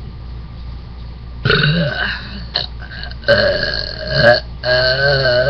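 A woman burping: three long, pitched burps one after another, starting about a second and a half in, the last still going at the end.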